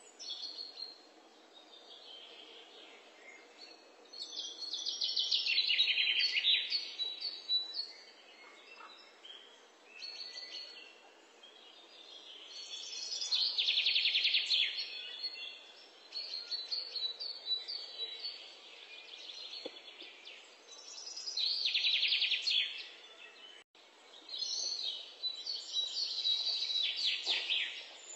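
A songbird singing in phrases: rapid, high-pitched chirping trills of two to three seconds each, four times, with quieter gaps between.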